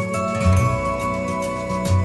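Background music: sustained notes over a bass line that changes note a few times.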